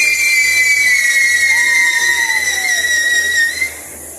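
Pyrotechnic whistle: a loud, high continuous whistle that slowly falls in pitch, then cuts off suddenly about three and a half seconds in.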